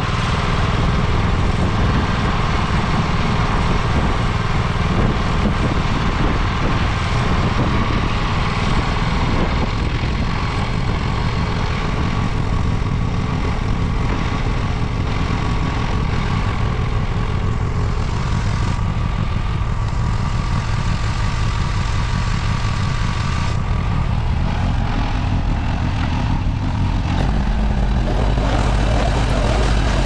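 Farm machinery engine idling steadily, its sound shifting slightly near the end.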